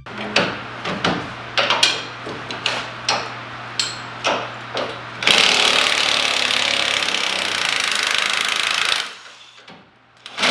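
Repeated hammer blows on metal, a few a second at an uneven pace. They give way to about four seconds of steady loud hissing that cuts off suddenly, and one more knock comes near the end.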